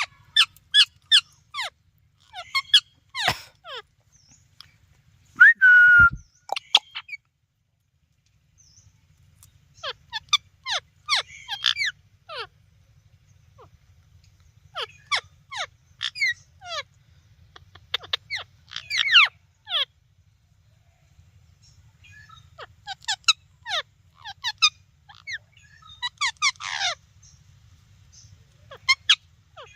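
Parrot chirping in quick bursts of short, steeply falling chirps, with pauses between the bursts and one longer whistle about six seconds in.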